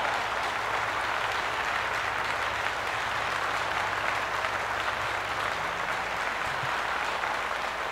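Steady crowd applause, fading slightly near the end.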